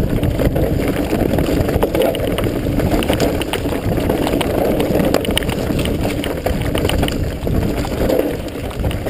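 Enduro mountain bike descending fast on a dirt trail: a steady low rumble of wind on the microphone and tyres on dirt, with a scatter of rattling clicks from the bike over bumps.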